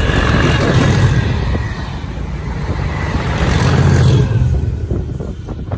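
Colas Rail Freight Class 37 diesel locomotive passing close under power, its English Electric V12 engine running loud with a high whistling note that fades over the first second and a half. The rumble peaks about a second in and again around three to four seconds, then falls away as the locomotive goes by.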